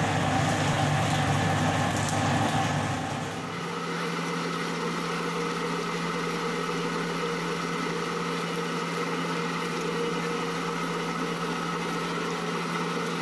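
Commercial dough mixer running with a steady electric-motor hum as its hook kneads a bowl of wet baguette dough. About three and a half seconds in the sound changes suddenly from a deeper rumble to a steadier, even hum.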